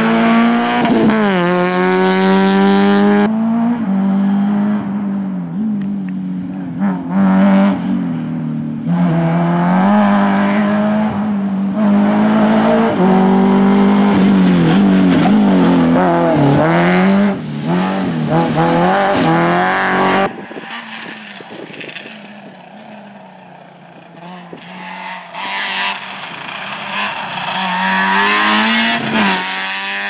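Engines of small hatchback rally cars, among them a Citroën Saxo and a Renault Clio, revving hard as they pass one after another, the pitch climbing and dropping with each gear change and lift-off. Past the two-thirds mark it falls to a quieter, more distant car, then builds again near the end.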